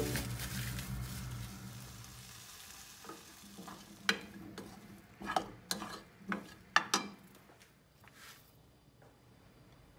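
Potatoes, sausage and green beans frying in a pan while a utensil stirs them. A soft sizzle fades over the first couple of seconds, then the utensil clicks and scrapes against the pan several times in the middle.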